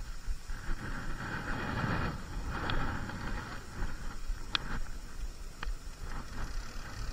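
Wind buffeting the microphone as an uneven low rumble with a hiss over it, broken by a few faint sharp clicks.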